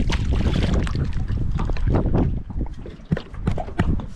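Wind buffeting the microphone, with water splashing as a hooked fish thrashes at the surface beside a boat's hull. The wind drops about two and a half seconds in, leaving short, sharp splashes.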